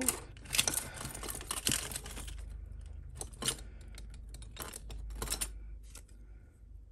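Costume jewellery clinking and rattling as hands rummage through a heap of metal bangles and beads: a dense clatter in the first couple of seconds, then scattered single clicks, quieter near the end.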